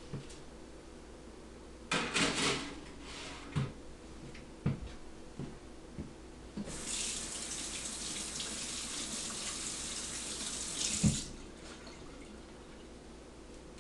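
Kitchen sink tap running for about four seconds, then stopping with a sharp knock. A short rustle or clatter comes about two seconds in, with a few light knocks between.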